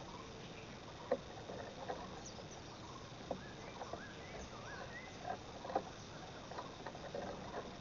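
Faint, scattered clicks and taps with a few soft, short bird chirps in the middle, over a steady insect hum.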